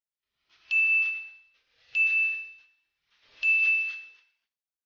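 Three identical short dings about a second and a half apart, each starting sharply and ringing on one high tone that fades within a second: the added sound effect of an animated like, subscribe and bell-button overlay.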